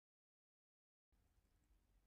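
Near silence: dead digital silence, with only an extremely faint hiss from about halfway in.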